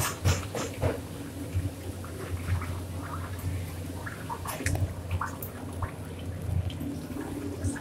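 Kitchen background: a steady low hum with scattered light clinks and knocks of utensils and dishes, and some trickling or dripping water.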